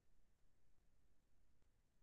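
Near silence: faint low background hum and hiss.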